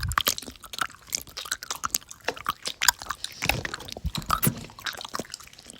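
A person chewing crunchy food: many quick, irregular crunches close to the microphone.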